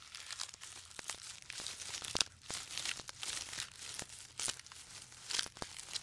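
Giraffe browsing, stripping leaves from a tree's branches: irregular rustling, tearing and crackling of leaves and twigs.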